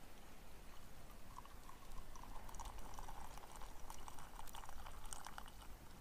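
Coffee poured from a Bialetti stovetop moka pot into an enamel mug: a thin stream of liquid runs into the mug for about four seconds, starting about a second in. A few short ticks are heard over it.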